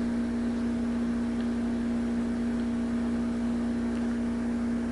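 A steady machine hum at one constant pitch with overtones and a low rumble underneath, unchanging throughout.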